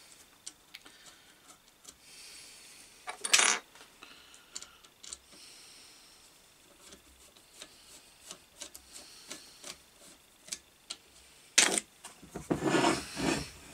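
Small metal clicks and scrapes as a screwdriver turns a long through-bolt in an electric motor's end bell, with a brief louder scrape about three seconds in. Near the end comes a sharp knock, then a second or so of rubbing as the metal motor casing is shifted on the bench.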